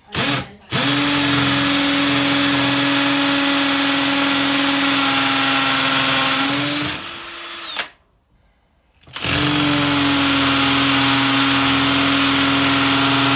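Ryobi 18-volt cordless drill with a special masonry bit boring into a hard concrete lintel. A brief blip of the trigger comes first, then a steady run of about seven seconds whose pitch rises slightly near its end. After a pause of about a second and a half a second steady run follows, the bit cutting through the concrete quickly.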